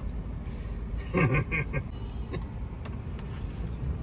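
Steady low rumble of road and engine noise inside a moving car's cabin, with a short burst of a voice about a second in.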